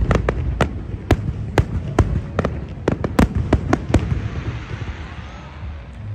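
Fireworks bursting in quick succession, several sharp bangs a second over a low rumble, thinning out about four seconds in.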